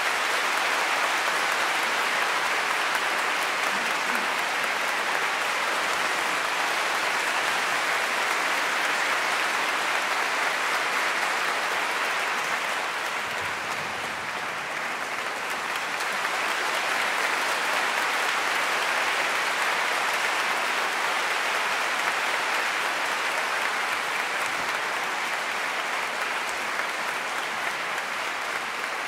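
Large audience applauding steadily at the end of an orchestral piece, easing a little about halfway through and then picking up again.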